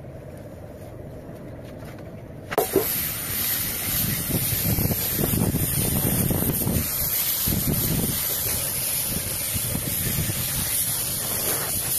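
Air spray gun hissing steadily as it sprays paint onto a motorcycle fuel tank, starting about two and a half seconds in after a quieter opening stretch.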